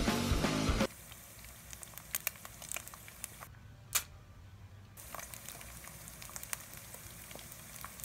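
Rock music cuts off about a second in, and is followed by quieter irregular crackling and spitting of eggs frying in a pan, broken by a short pause with a single click midway.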